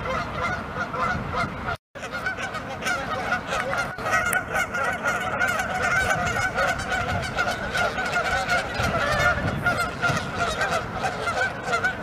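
A flock of Canada geese honking, many loud calls overlapping without pause, cut by a brief dropout about two seconds in.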